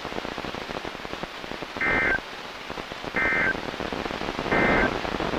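Three short warbling bursts of NOAA Weather Radio SAME digital data, the end-of-message code that closes the weekly test, evenly spaced about a second and a half apart over steady radio hiss.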